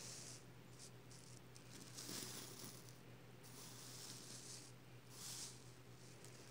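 Hand brushing across a reversible flip-sequin pillow, the sequins flipping over with faint, soft swishing rustles, several strokes in a row.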